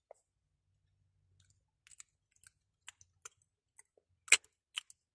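Scattered small clicks and taps close to the microphone, from fingers and hand handling. The loudest comes about four seconds in.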